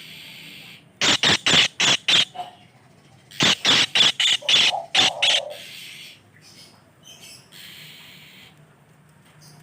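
A bird caught in a net giving harsh squawking calls in two rapid runs of about half a dozen each, with softer rustling in between.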